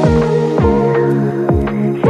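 Electronic background music with sustained synth chords and a steady kick-drum beat, about two beats a second.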